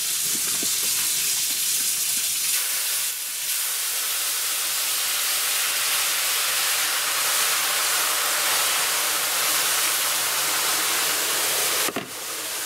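Hot water poured from a kettle into a still very hot cast-iron roaster, boiling hard on contact with a steady hiss of steam and sizzling. The pan is being cooled quickly after its oil seasoning has been baked on. The hiss dips briefly near the end.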